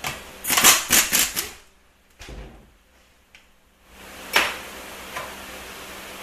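Cordless ratchet running in a few short bursts, backing out the bolts of the digital transmission range sensor on a Ford 4R75E automatic transmission case. A single sharp clunk follows about four seconds in.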